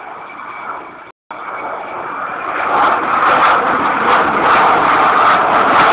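Avro Vulcan bomber's four Rolls-Royce Olympus jet engines roaring as it flies low overhead. It is a rushing jet roar that builds over the first few seconds and then holds steady and loud. The recording cuts out briefly about a second in.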